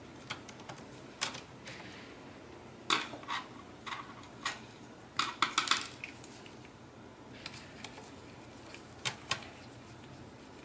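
Sharp plastic clicks and taps from a laptop's LCD panel and display bezel being handled and worked loose, coming in scattered small groups. The loudest is a quick run of clicks about five seconds in, and there are two more clicks near the end.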